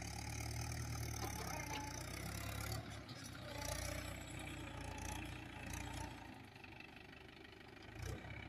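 Mahindra Yuvo 475 DI tractor's diesel engine idling with a steady low hum, a little fainter for a couple of seconds near the end.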